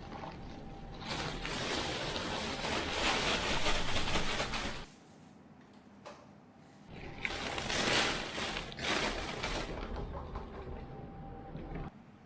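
Plastic dustbin of a robot vacuum being handled and emptied: clicking and rattling of the plastic parts in two spells, the first lasting about five seconds, then after a quieter gap a second spell starting about seven seconds in.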